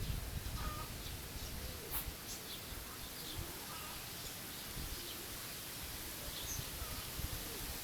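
Faint wind rumble with a few scattered, faint bird chirps.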